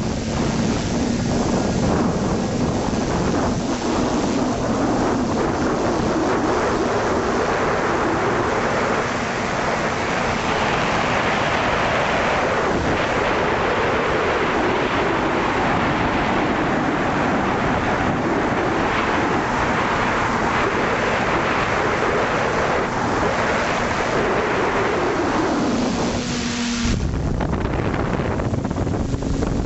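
Electric motors and propellers of an FPV aircraft, heard from its onboard camera, whining with a pitch that rises and falls as the throttle changes. Wind rushes over the microphone throughout. Near the end the motor pitch drops and steadies, and the wind rumble grows heavier.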